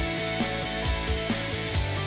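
Outro music: an upbeat rock-style track with guitar and a steady beat.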